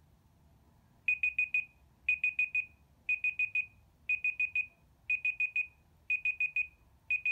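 Countdown timer app's alarm going off as it reaches zero: groups of four quick high-pitched beeps, repeating about once a second, starting about a second in.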